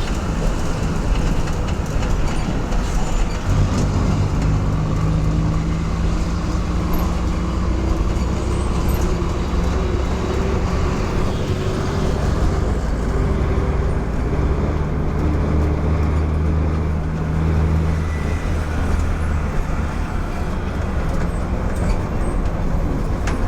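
Interior of a city bus on the move: steady engine drone and road rumble. The engine hum comes up stronger about three and a half seconds in and holds until about eighteen seconds in.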